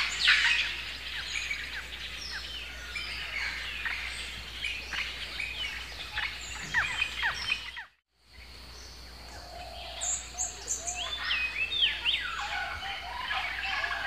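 Chorus of rainforest birds calling: many quick falling chirps. A brief dropout comes just before the middle, and after it a different mix of whistled calls and trills follows.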